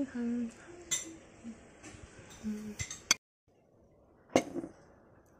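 Metal fork clinking against a plate a few times during eating, the loudest clink about four seconds in.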